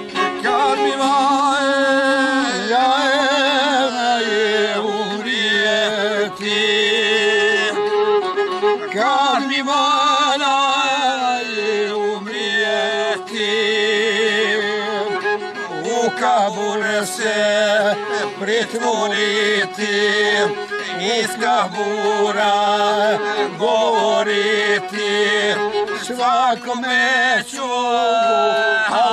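Two violins playing a folk song together over a steady low held note, with a man's voice singing along in a wavering, ornamented line.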